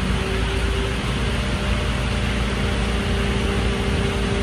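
Mercedes-Benz Actros garbage truck idling steadily with a low hum, under the even hiss of falling rain.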